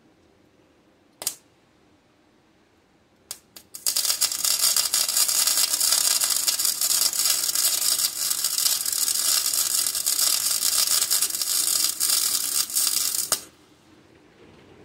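Electric arc welding on a cracked steel ATV frame: a few short clicks of the arc being struck, then a steady crackling weld for about nine and a half seconds that cuts off suddenly.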